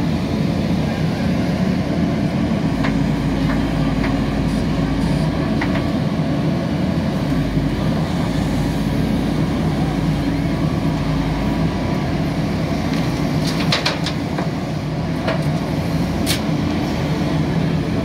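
JCB backhoe loader's diesel engine running steadily under load as the backhoe digs, with a few short metallic clanks in the second half.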